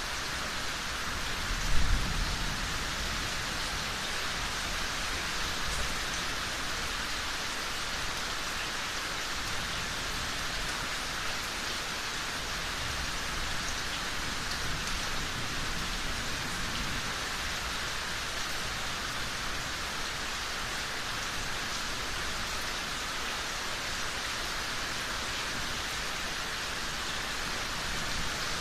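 Steady rain falling, an even hiss of drops on surfaces, with one short, loud, low clap of thunder about two seconds in.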